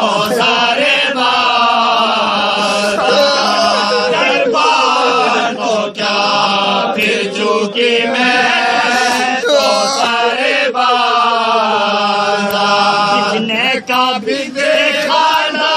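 A group of men chanting a marsiya, an Urdu elegy for Imam Husayn, loudly and in unison, led by an older man reading the verses from a sheet. The chant runs on with only brief pauses, about six and fourteen seconds in.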